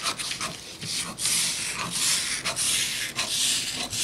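Scissors cutting through pattern paper. There are short crisp snips at first, then from about a second in a longer steady hissing rasp as the blades slide along the cutting line, with the paper rustling.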